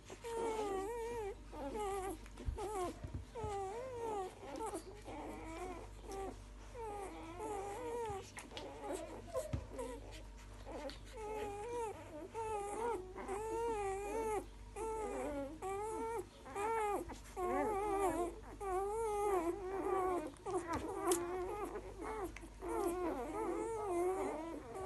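A litter of day-old puppies whimpering as they crawl and nurse at their mother. Many thin, wavering cries overlap with hardly a break.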